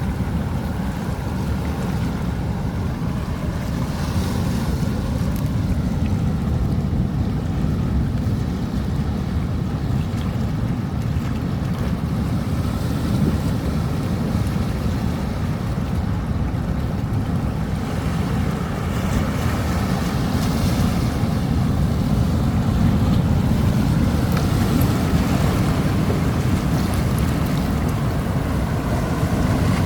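Rough sea waves surging and washing on the shore in a steady roar, swelling a little at times, with deep wind rumble on the microphone.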